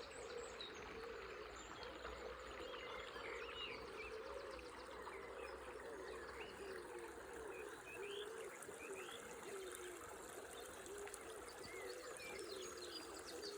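River water running steadily with a low wavering gurgle, while birds chirp briefly here and there.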